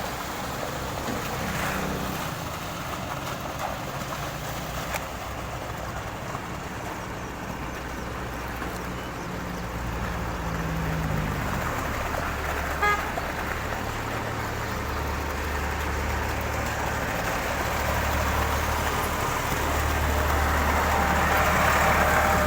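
Heavy vehicle or machinery engine running steadily, its low drone growing deeper and louder from about twelve seconds in and on to the end, with a short horn toot partway through.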